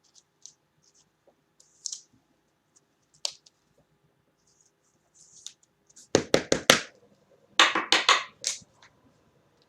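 Trading cards and their plastic sleeves being handled: light scratching and clicking, then two quick runs of sharp scraping strokes about six and seven and a half seconds in, as cards slide against one another and against plastic.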